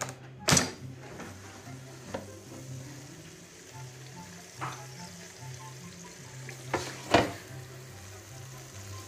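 Air fryer basket pulled open with a sharp plastic clack about half a second in. The hot chicken skewers sizzle faintly in it, and a few more knocks and clatters follow as the basket is handled, the loudest near the end. Background music with a low bass line plays throughout.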